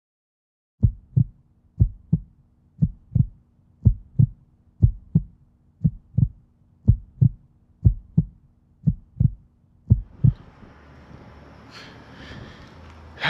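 Heartbeat sound effect: ten double thumps, about one a second, over a low steady drone, stopping about ten seconds in. Faint outdoor background noise follows.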